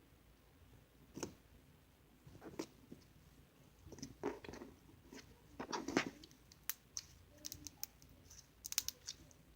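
Slime being handled, squeezed and poked: irregular sticky squelches and small clicking pops, busier in the second half with a quick run of sharp clicks near the end.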